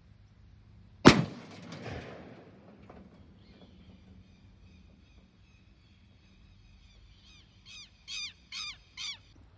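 A single 20-gauge shotgun shot about a second in, sharp and loud, with an echo that dies away over about two seconds. Near the end a bird gives a quick run of short falling calls.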